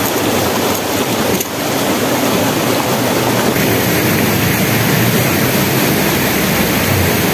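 Steady rush of flowing stream water, a loud even noise with no break.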